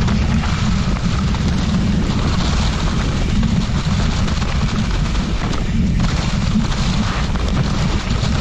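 Steady wind buffeting a helmet-mounted GoPro's microphone as a mountain bike rides downhill, a heavy low rumble, with tyre noise from rolling over a leaf-covered dirt trail.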